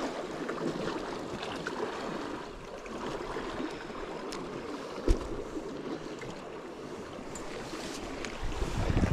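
Sea water washing steadily against a rocky shore, with a single dull thump about halfway through.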